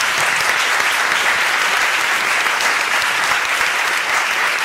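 An audience applauding: dense, steady clapping from a large room of people.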